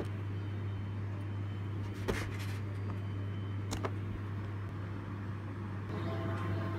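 A steady low hum with a light noise haze, broken by two sharp knocks about two and four seconds in; soft music tones begin near the end.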